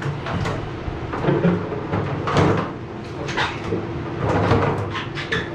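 Irregular knocks, bumps and scraping of something being shifted about, over a faint steady hum.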